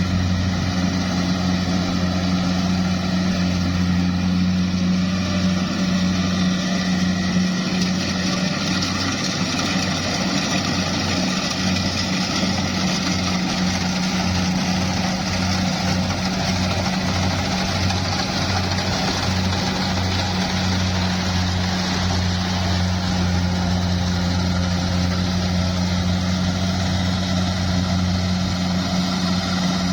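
Engine of a rice-harvesting machine running steadily at constant speed, a deep even hum with a faint regular pulsing in the low tone through the middle.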